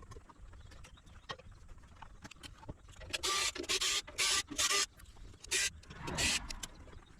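A small electric motor tool running in several short bursts, each well under a second long, with a few light clicks before them.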